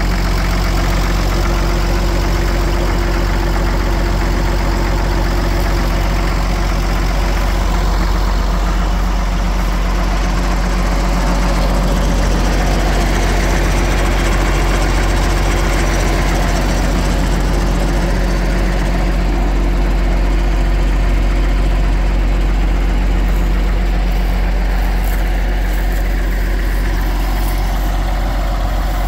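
Case diesel tractor engine idling steadily with the tractor standing still.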